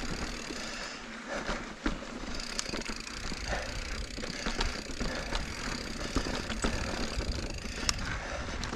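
Mountain bike riding over dirt and rock singletrack: a continuous rumble of tyres on the trail with the bike's chain and frame rattling, and scattered sharp knocks as it hits rocks.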